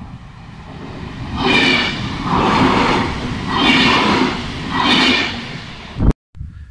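Double-deck electric passenger train passing close by, a loud rush that builds and swells four times about a second apart as it goes past. The sound cuts off abruptly near the end.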